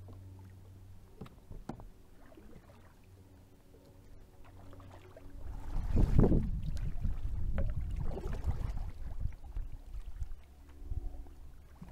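Double-bladed kayak paddle dipping and splashing through lake water. It is quiet for the first few seconds, then the strokes start about halfway through, the loudest splash at the first stroke and several more strokes following.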